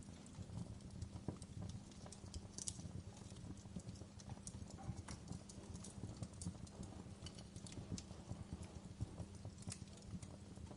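Wood fire crackling in a fireplace: a steady low rumble with many small, irregular pops and snaps.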